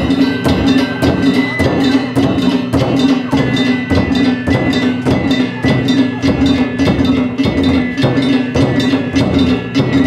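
Danjiri festival music (narimono) played on the cart: a taiko drum and small hand gongs (kane) struck in a fast, steady rhythm, with a high bamboo flute line above.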